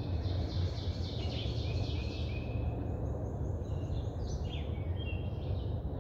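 Small birds chirping repeatedly, several short calls overlapping, over a steady low background rumble.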